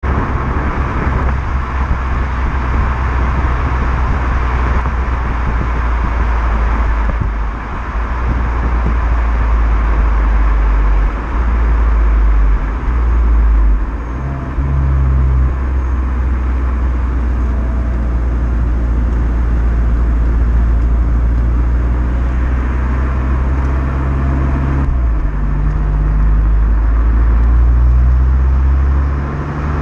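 Renault Mégane GT's 1.6 TCe turbocharged four-cylinder running through its stock exhaust: a steady low drone that shifts in pitch a few times.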